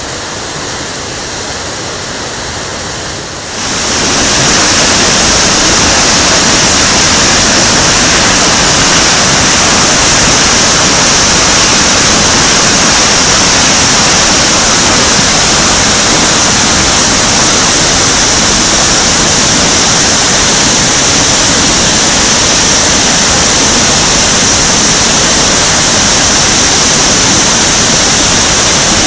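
Swollen river pouring over a rocky waterfall: a loud, steady rush of whitewater. About three and a half seconds in it jumps much louder, close over the churning cascade.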